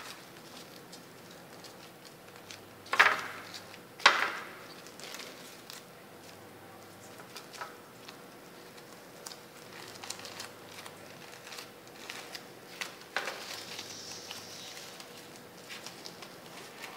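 Thin plastic bag crinkling and rustling as hands roll a fresh spring roll inside it, with two sharp, louder crackles about three and four seconds in.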